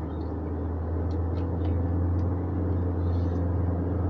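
Steady low drone of a hybrid car driving, heard inside the cabin: engine and road noise that grows slightly louder over the first couple of seconds.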